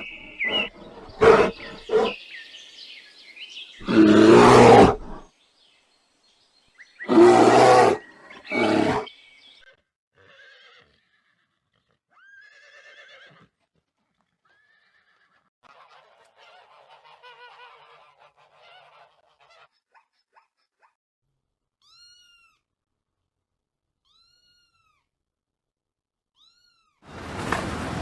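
A string of animal calls: three loud cries in the first ten seconds, then softer scattered calls, and several short high chirps near the end.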